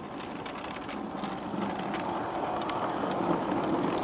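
A 16mm-scale garden railway train rolling along the track, its wheels rumbling on the rails with scattered faint clicks. The sound grows louder as the lit carriages come by close.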